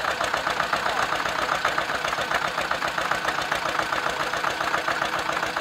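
Two vintage Zetor 25 tractors' two-cylinder diesel engines idling together: a steady, rapid diesel knock.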